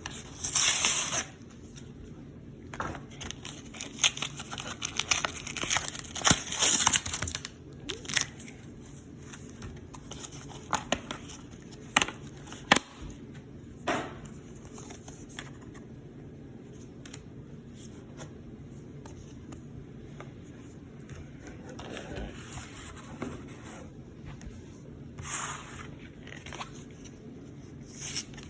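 Pokémon card pack packaging being torn open and crinkled in rustling bursts over the first several seconds, followed by scattered sharp clicks and taps of cards and packaging being handled, with a short rustle again near the end.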